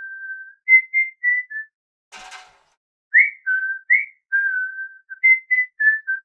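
A person whistling a short tune of clear, separate notes in two phrases, with a brief hiss about two seconds in.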